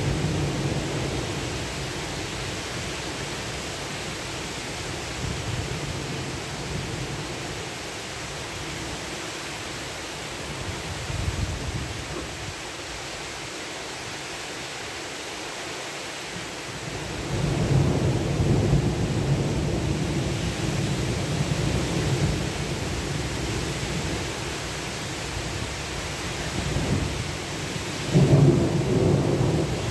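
Heavy thunderstorm rain falling steadily. Low rumbling swells rise about halfway through and again near the end.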